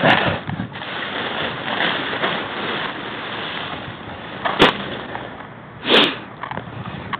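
Nylon paraglider canopy rustling and crinkling as it is handled and spread out on the grass, with two sharp knocks about four and a half and six seconds in.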